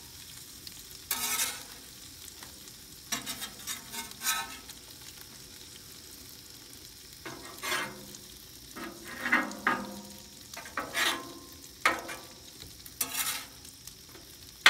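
Bacon sizzling on a Blackstone flat-top griddle, with a metal spatula repeatedly scraping and clacking on the steel cooktop as the bacon and toasting bread are turned.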